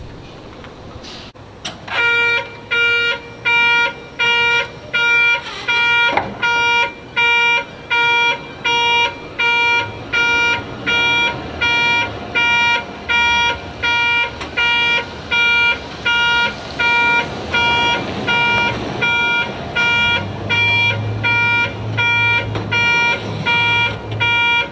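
Electronic warning beeper on a 1993 Toyota Dyna fire truck, sounding a steady, even beep about one and a half times a second, starting about two seconds in.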